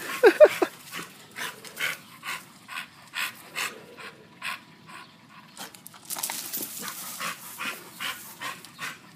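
A dog panting hard and rhythmically, about two breaths a second, tired out from swinging on a rope. It opens with a brief whine.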